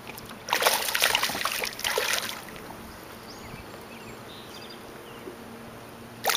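A hooked smallmouth bass splashing and thrashing at the water's surface: a burst of splashing about half a second in that lasts nearly two seconds, then quiet water, with another short splash at the very end.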